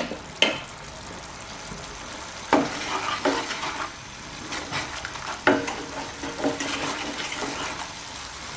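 Thick spice paste of onion, ginger-garlic and ground spices, loosened with a little water, simmering and sizzling in a nonstick pan. It bubbles with a steady hiss and several sharp pops or plops along the way. This is the masala being fried down (kosha) before the fish goes in.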